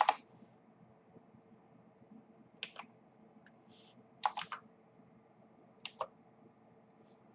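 Computer keyboard keystrokes: a few short clicks, singly or in quick pairs and triples, a second or two apart, while a number is typed into a parameter field.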